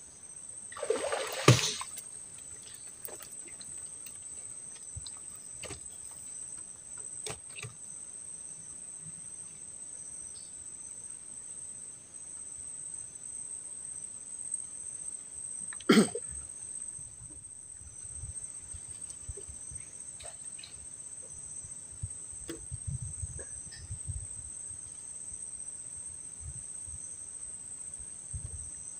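Steady high-pitched drone of insects chirring. A short loud burst of noise comes about a second in, and a sharp knock about halfway through.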